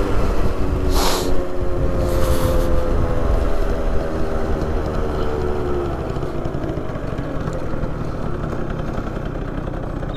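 50cc two-stroke scooter engine running on the move, its note slowly falling over the first half as the rider eases off, over a heavy low rumble.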